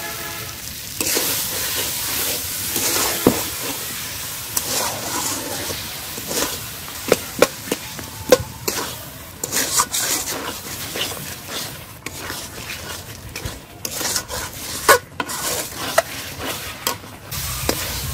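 A metal spatula stirs and scrapes hog plum chutney around a kadai, with frequent clacks against the pan over a steady sizzling hiss as freshly added sugar cooks into the sauce.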